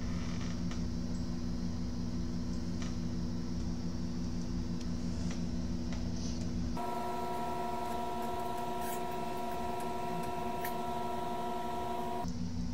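Steady electrical hum from the repair-bench equipment. About seven seconds in it switches abruptly to a higher, steady whine of a few pure tones, and it drops back to the low hum near the end.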